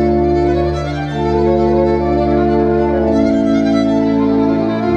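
Violin and pipe organ playing together: a bowed violin line over sustained organ chords with low held bass notes, the harmony changing about a second in and again near the end.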